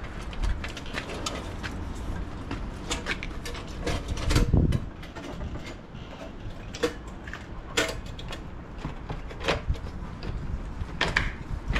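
Metal electric meter socket being handled and set up against a house wall: scattered clicks and knocks, with a louder thump about four and a half seconds in.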